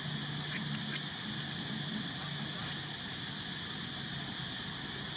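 Steady high-pitched insect drone in the background, with a few faint clicks and rustles. A low hum underneath fades out about halfway through.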